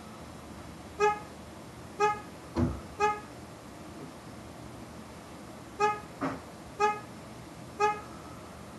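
Chevrolet HHR car alarm going off, honking the horn in short toots about a second apart, two sets of three. A duller thump falls within each set.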